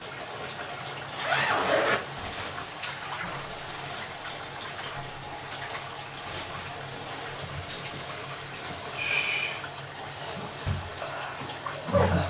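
A steady rush of bath water, with a louder splash near the end as a man in a sweatsuit lowers himself into the full bathtub.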